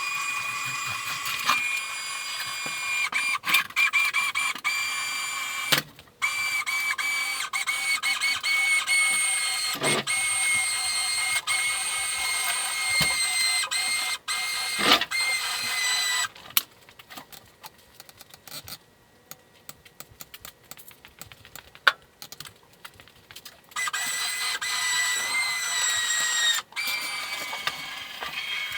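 Winch whining as it winds in cable to pull the backhoe, running in stretches with sharp clicks. It stops briefly about six seconds in, goes quiet for several seconds in the middle apart from scattered clicks, then runs again near the end.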